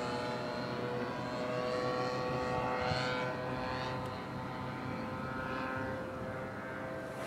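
Radio-controlled model airplane engine and propeller whining overhead in a steady drone, its pitch drifting slightly lower.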